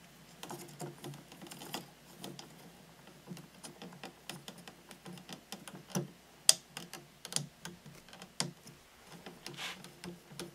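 Light, scattered clicks and taps of a hex key turning an M3 cap screw into a scale model's wheel hub mount, with fingers handling the part; one sharper click about six and a half seconds in.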